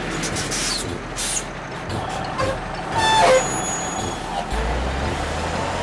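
Heavy truck engine sound effect running steadily as the cartoon tow truck drives, with a brief loud pitched sound rising in pitch about three seconds in and a deeper rumble from about four and a half seconds in.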